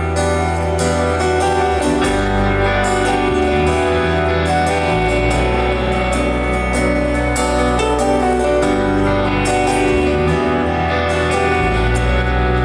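Live band playing an instrumental passage with no vocals. Held notes sit over a bass line that changes note every two to three seconds, with regular cymbal-like hits on top.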